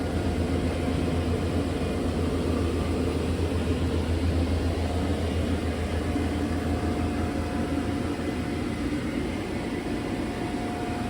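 60-gallon air compressor running, a steady low pulsing hum, under a steady hiss of air.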